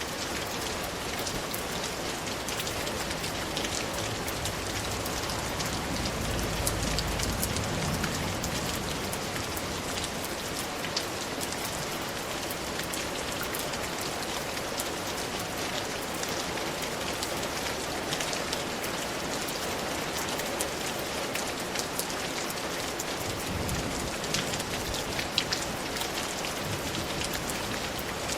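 Steady, even rainfall, with many individual drops ticking sharply through the hiss. A brief low rumble rises under it about six seconds in.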